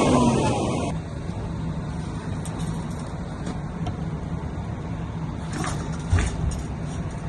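An engine running steadily with a low hum. A louder passing noise, its pitch sliding, dies away about a second in, and a few light knocks come near the end.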